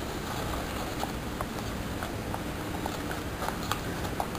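Folded origami paper crackling and clicking as fingers pinch and press its creases, giving irregular small clicks over a steady hiss.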